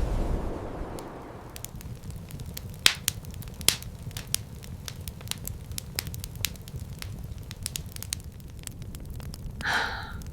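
Wood fire crackling: irregular sharp pops and snaps, a few louder than the rest, over a steady low rumble. A short hiss comes near the end.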